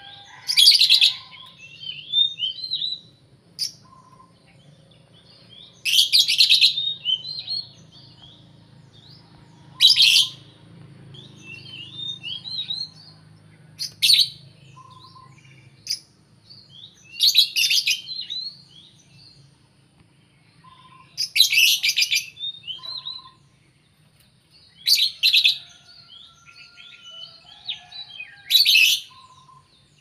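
Lovebirds giving their long chattering 'ngekek' call: shrill, harsh bursts about a second long every three to four seconds, with softer twittering chirps in between.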